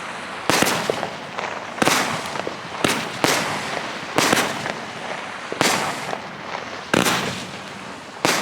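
Fireworks going off in a rapid series: about eight sharp bangs roughly a second apart, each one trailing off before the next.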